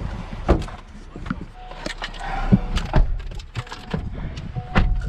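A string of irregular knocks and clicks, a dozen or so, like handling and bumping of objects, over a low rumble.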